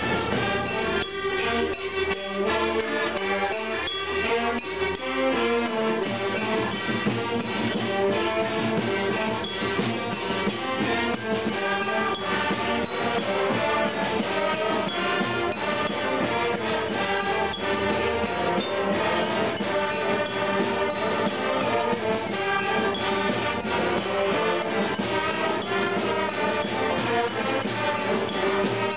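School concert band playing a piece, woodwinds and brass sounding together in sustained, changing chords.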